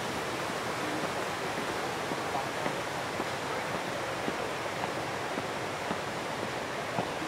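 Steady, even rushing hiss of outdoor background noise, with a few faint light taps now and then.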